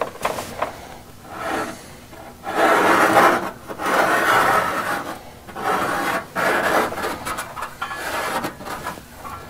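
Felt-tip marker dragged along the edge of a new steel floor pan against the old rusty sheet metal: a dry scratching rub in several strokes about a second long, marking the trim line where the pan overlaps.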